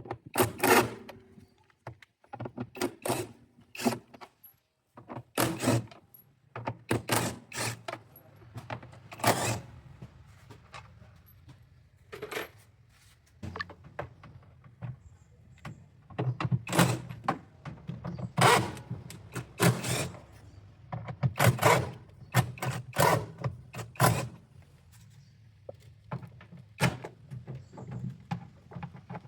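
Repeated sharp knocks and metallic clinks of tools and metal parts being handled while working on a washing machine. A low hum runs underneath and grows stronger about halfway through.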